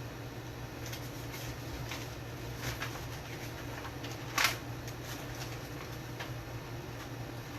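Handling noises while rummaging on a workbench: a few light taps and clicks, with one sharper knock about four and a half seconds in, over a steady low hum of room tone.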